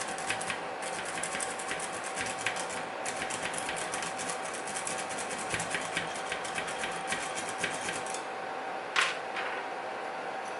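Metal lock pick working inside an automotive door lock cylinder: a fast run of light metallic clicks as the pick rakes over the wafers, then one louder scrape near the end.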